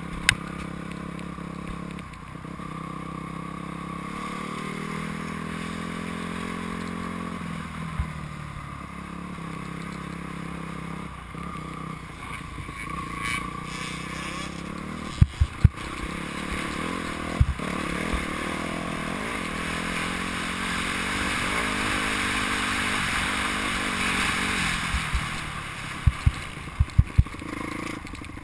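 Motocross bike engine running under the rider, climbing in pitch as it revs up a few seconds in and then dropping back, with wind rushing over a helmet-mounted microphone. Several sharp knocks come through around the middle and again near the end.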